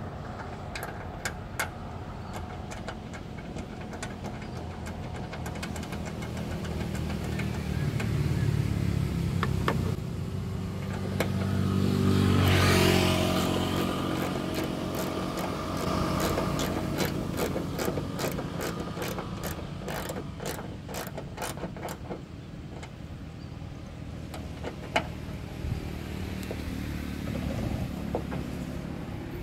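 Steady road traffic with a vehicle passing close by about twelve seconds in, the loudest sound. Over it, a ratcheting socket wrench clicks as a 10 mm bolt is turned, at first scattered and then in a quick even run of about four clicks a second.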